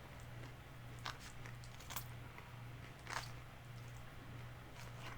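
Close-up chewing and biting of a crispy fried chicken flauta, with a few sharp crunchy clicks about one, two and three seconds in and again near the end.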